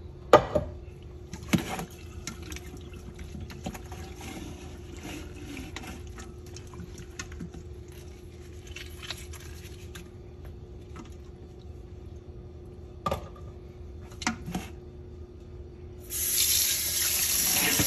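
Wet squelching and light knocks of raw chicken pieces being rubbed with lemon halves in a metal colander, with a few sharp clicks. About sixteen seconds in, a faucet turns on and water runs into the steel sink.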